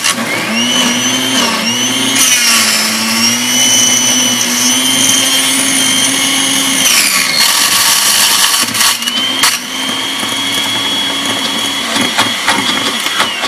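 Black & Decker FusionBlade blender (model BL1120) running on a thick frozen-berry and frozen-yogurt shake. Its motor whine wavers at first, then shifts with some rattling clicks about halfway through, and stops near the end. The owner finds this blender's plastic drive nut melted on the motor spindle after a few uses.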